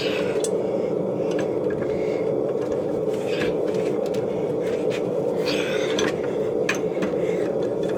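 Steady roar of a forge burner, with a few sharp metal clinks and scrapes of tools against the hot steel billet during the twisting.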